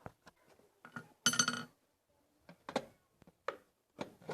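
Metal hand tools clinking and knocking as they are handled, with one loud ringing metal clank a little over a second in and several lighter knocks after it.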